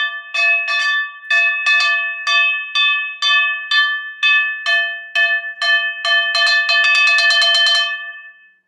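A frying pan being banged loudly and repeatedly as a wake-up noise, each strike ringing with the pan's metallic tone. The strikes come about twice a second, then speed up into a rapid clatter near the end before stopping.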